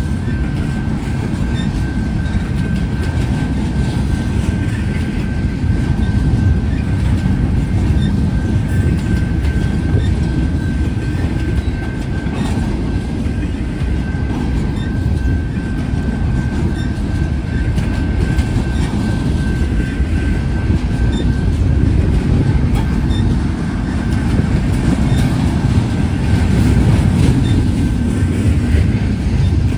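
Intermodal freight train cars rolling past: a steady, heavy rumble and clatter of steel wheels on the rails, with a thin, steady high-pitched whine from the wheels that fades about two-thirds of the way through and returns near the end.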